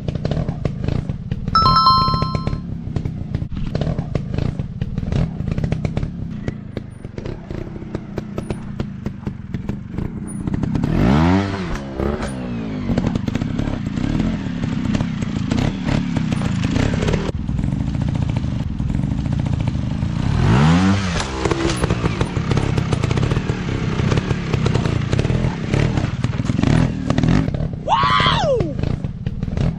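Dirt-bike engines running on a trail, one revved up and back down twice, about ten seconds apart. A short high tone falls in pitch near the end.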